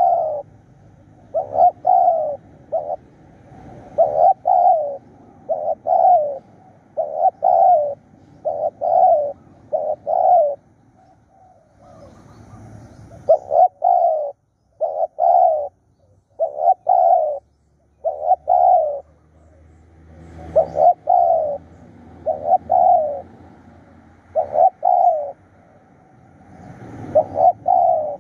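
Spotted doves cooing: phrase after phrase of low, slightly falling coos, two or three notes at a time, with short pauses between phrases.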